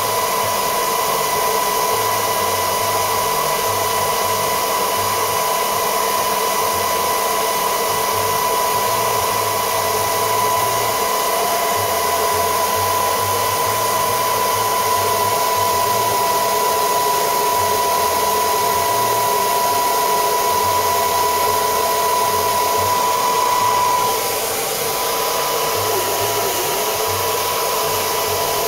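Electric hot-air blower running steadily, a rushing air noise with a steady motor whine. The whine and the level drop slightly about 24 seconds in.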